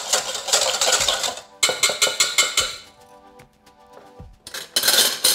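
Wire balloon whisk beating a vinaigrette in a stainless steel mixing bowl: a rapid scraping clatter in two bursts over the first three seconds, then a short clatter near the end. Background music plays underneath.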